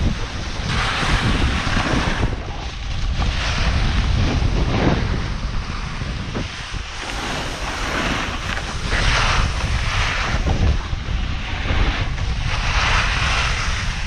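A snowboard's edges scraping over hard-packed snow, rising in swells of hiss every couple of seconds as the rider turns, with wind buffeting the camera's microphone as a constant low rumble.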